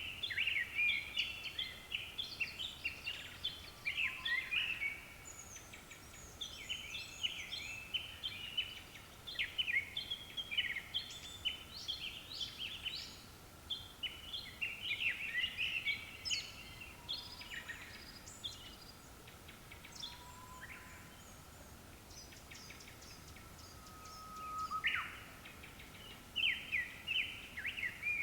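Japanese thrushes singing: quick, varied phrases of clear whistled notes, more than one bird overlapping, thinning out for several seconds past the middle before picking up again. A faint steady tone runs underneath.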